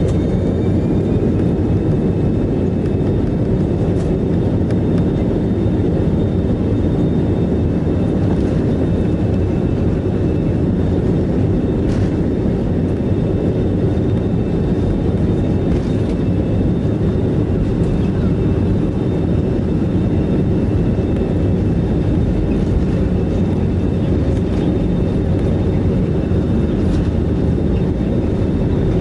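Airbus A320 cabin noise heard from a window seat over the wing: a loud, steady rumble of the jet engines and rolling as the airliner lines up and begins its takeoff roll. A few faint knocks come from the wheels.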